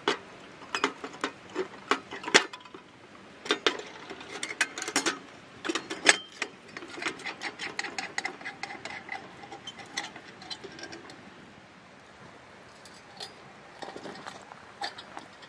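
Glass and metal parts of a small Future Fox oil lantern clinking and clicking as its glass globe, top cap and wire handle are fitted on: a quick run of sharp taps, some with a brief ring. The taps thin out after about ten seconds and leave a few faint clicks.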